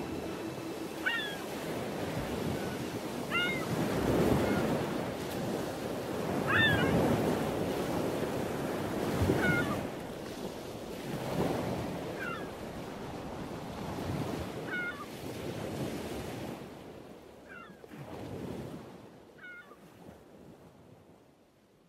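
Ocean surf washing in, swelling about every two and a half seconds, with a bird crying above it at about the same pace. It all fades out toward the end.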